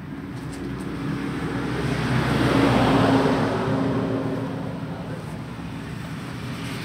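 A motor vehicle engine passing by, swelling to a peak about three seconds in and then fading.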